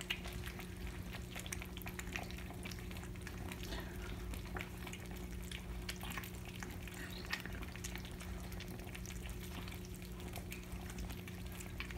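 Several kittens eating wet cat food from a platter: faint, wet chewing and lapping clicks. A steady low hum sits underneath.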